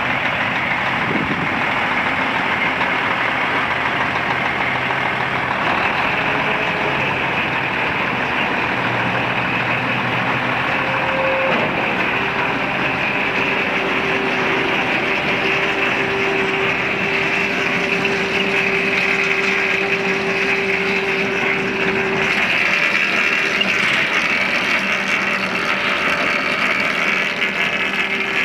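1997 International 8200 truck's diesel engine idling steadily. A steady mid-pitched whine joins in about halfway through.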